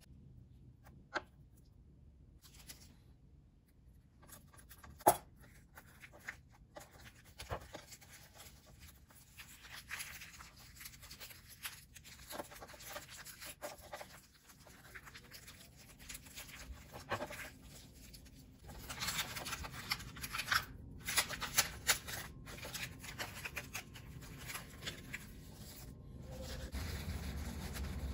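Crisp roasted seaweed sheet crinkling and rustling as hands fold it around sandwich fillings, with scattered light taps and rubs on a paper placemat; the handling gets busier past the middle and a low hum comes in near the end.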